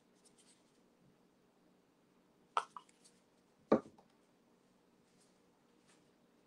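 Faint room tone broken by two short knocks about a second apart, the second the louder, as a clear plastic cup of poured acrylic paint is handled on a tabletop.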